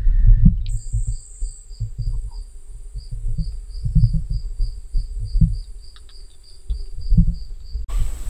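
Insects calling: a steady high whine and a pulsing chirp repeating about four times a second, over irregular low thuds of footsteps while walking. The chirping stops near the end.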